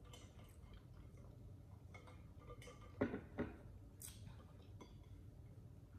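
Quiet mouth sounds of eating and drinking from a tumbler: soft scattered clicks and smacks, with two louder short sounds close together about three seconds in and a sharp click just after four seconds.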